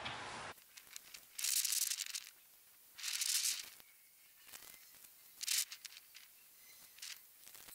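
Crinkling and rustling of a thin plastic seedling pot and dry straw being handled. It comes in two longer bursts about a second and a half and three seconds in, then a shorter one, with scattered small clicks between.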